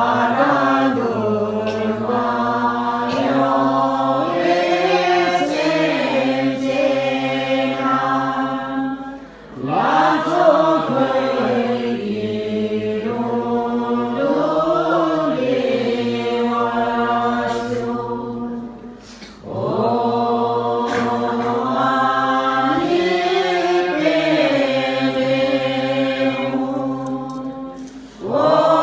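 Buddhist mantra chanting: voices sing a slow, melodic chant in long phrases of about nine seconds each, with a short pause for breath between phrases.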